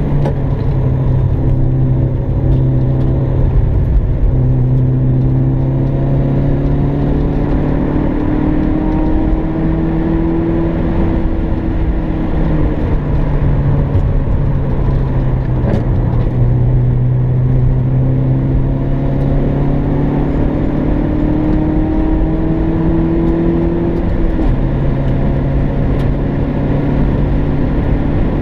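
MG ZR's four-cylinder engine driven hard on circuit, heard from inside the cabin over road and wind noise: its note climbs slowly under throttle and falls back at the gear changes and braking, twice over.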